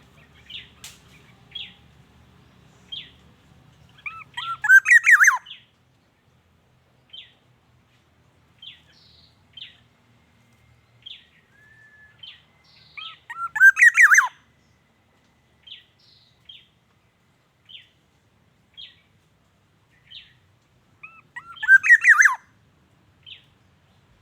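Black-naped oriole calling: three loud phrases of gliding notes, about eight seconds apart and each a little over a second long, with short single high notes about once a second in between.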